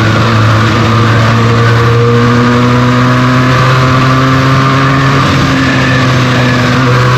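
Benelli TNT 300's twin-cylinder engine through its stock exhaust, running at a nearly steady cruising speed under way, with only small shifts in pitch. A steady rush of wind and road noise lies under it.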